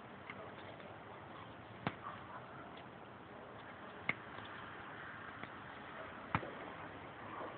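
A dog nosing and pulling at ground-cover plants: faint rustling, broken by three sharp clicks about two seconds apart.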